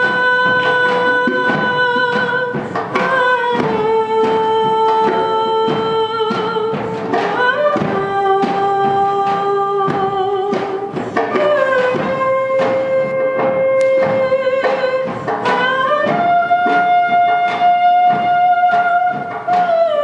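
A woman singing live with a band: long held notes, each lasting a few seconds and sliding up or down into the next, over a steady drum beat.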